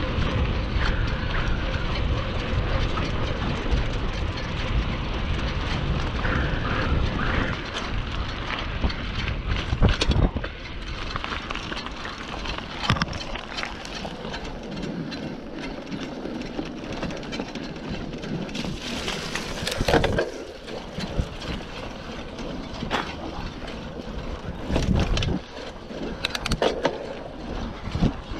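Mountain bike riding along a trail: wind rumbling on the microphone over the rolling tyres, with sharp knocks and rattles from bumps, the strongest about ten and twenty seconds in. The rumble is heaviest in the first ten seconds.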